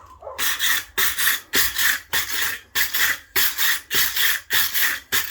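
Blacksmith's power hammer striking hot metal to flatten it, a steady run of about two blows a second.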